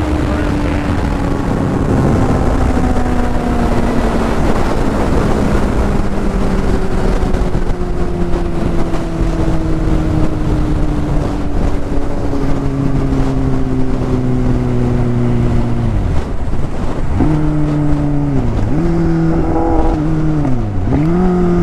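Kawasaki Z800's inline-four engine under heavy wind rush at high speed, its note falling slowly as the bike slows after a run at about 227 km/h. About sixteen seconds in, the note drops away briefly, then rises and falls several times as the throttle is closed and reopened.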